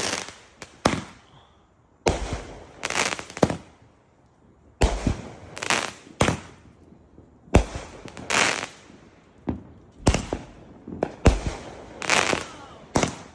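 Consumer fireworks going off: a string of sharp bangs roughly one to two seconds apart, some in quick pairs, each fading away briefly.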